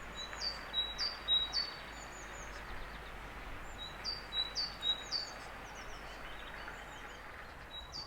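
A small songbird singing short, high, repeated phrases: two runs of notes a few seconds apart, with a third starting near the end, over a faint steady outdoor hiss.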